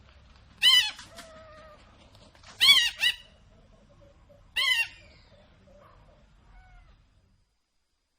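Eagle calling: short, high-pitched screeching notes that drop in pitch, three loud ones about two seconds apart, the second with a quick follow-up note, and fainter calls between. The calls stop about seven seconds in.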